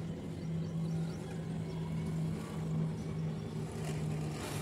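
A motor running with a steady low hum, holding one pitch with slight wavers.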